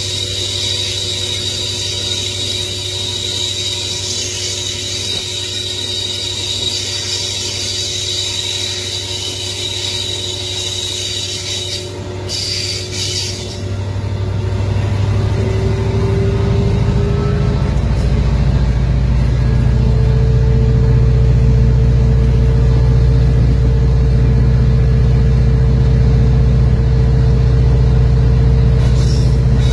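EMD SD70 locomotive's two-stroke diesel engine running steadily with a high hiss over it. The hiss drops away about twelve seconds in. From about fourteen seconds the engine grows louder and its pitch rises as it throttles up, then holds a heavier, steady note.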